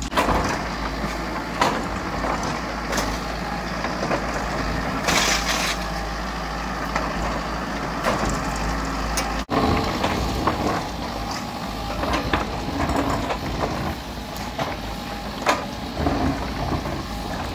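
Volvo compact crawler excavator's diesel engine running steadily while the bucket digs into the hillside, with scattered knocks and clacks of rock and soil.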